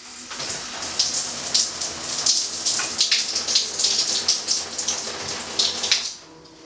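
Shower running, water spraying and spattering unevenly in the stall; about six seconds in it drops to a low hiss.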